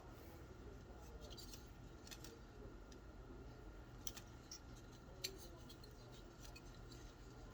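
Near silence with a low room hum and a few faint, scattered clicks and ticks, the kind made by handling small parts of the opened phone.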